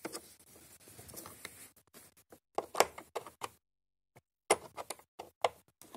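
Scattered small clicks and taps of a Torx screwdriver bit being lined up with a screw in a robotic mower's plastic battery housing, with a brief gap near the middle.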